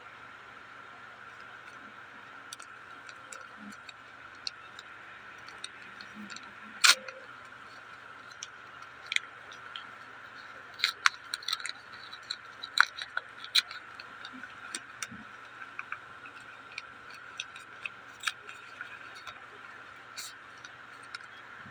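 Irregular light clicks and taps of trading cards and their packaging being handled, a few sharper snaps among them, over a steady faint hiss.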